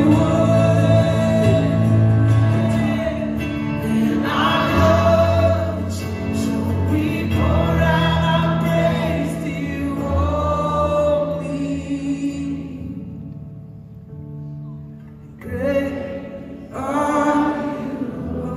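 Live acoustic worship music: several voices singing together in phrases over held chords from the band. Near the end the sound thins out briefly, then the singing comes back in.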